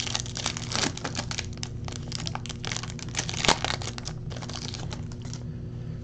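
Foil wrapper of a Finest baseball card pack crinkling as it is pulled open by hand: a rapid run of sharp crackles that stops about five seconds in.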